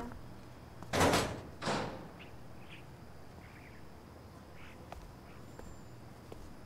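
Two short bursts of noise about a second in, the second just under a second after the first, then faint, scattered bird chirps in the background.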